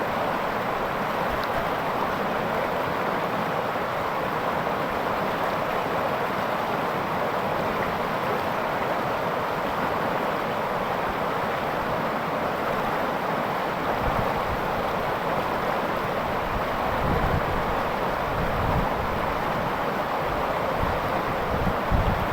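River water rushing steadily between large boulders, a continuous even rush. A few brief low rumbles come through in the last third.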